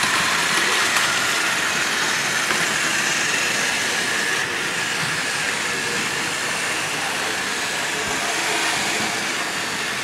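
Several battery-powered Plarail toy trains running at once on plastic track, including a suspended monorail: a steady whirring of their small electric motors and gears, without pause.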